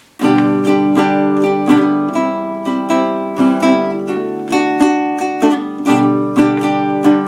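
A plucked string instrument strummed in a steady rhythm of chords, starting abruptly just after the beginning.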